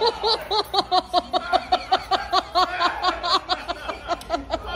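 A person laughing hard in a long unbroken run of rapid "ha-ha-ha" pulses, about five a second.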